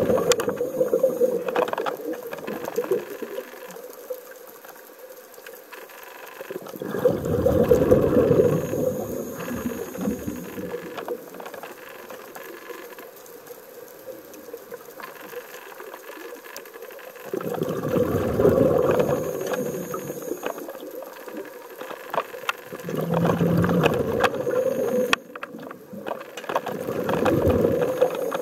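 Scuba diver's regulator exhaust: five surges of rushing exhaled bubbles at uneven intervals, with quieter stretches between, heard underwater.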